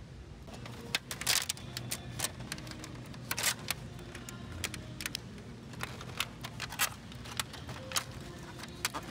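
Clicks and crackles of hard plastic being handled: a clear plastic egg tray is pulled from a stack and set into a plastic shopping basket. A low steady hum runs underneath.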